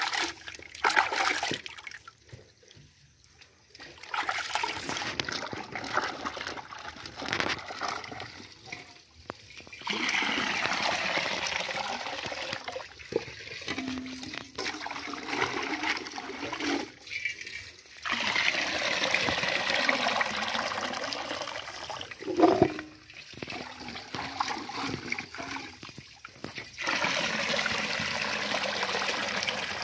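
Hands splashing and sloshing chopped vegetable pieces in water in a steel basin, with longer steady spells of water rushing and pouring as a basin is tipped to drain.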